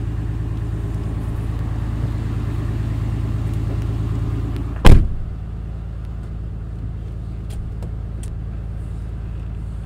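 Car-audio subwoofers driven by a Digital Designs M5000 amplifier play a steady low test tone inside the truck cabin, with the amp set to about 60 volts at the terminals and not clipping. About five seconds in there is a single sharp knock, and after it the tone carries on a little quieter.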